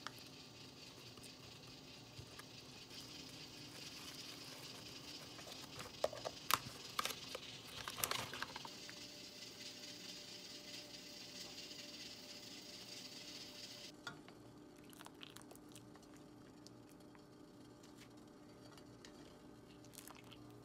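Quiet kitchen handling sounds: a faint steady hiss, with light crinkles and clicks from dried anchovies and a paper stock bag clustered about a third of the way in. The sound turns quieter with faint ticks for the rest, while a pot of water heats on a gas stove.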